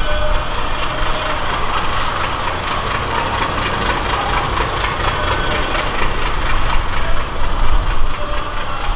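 A heavy engine running with a deep rumble, under a continuous clatter of rapid knocks and rattles.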